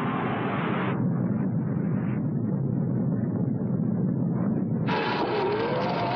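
Film sound of a nuclear blast: a loud, steady, rushing rumble of blast wind, with no pauses. The sound changes abruptly about one second in and again about five seconds in, where a faint rising tone comes in over it.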